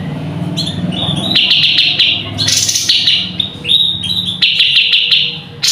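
Cucak cungkok songbird singing loudly in repeated short phrases, about one every second and a half: each is a sharp hissing note followed by a fast buzzy trill. It is the kind of song used as a masteran, a recording for training other songbirds.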